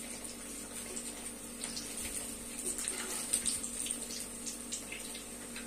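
Paneer-and-bread balls deep-frying in hot oil on a fairly high flame: a steady bubbling sizzle with scattered small crackles.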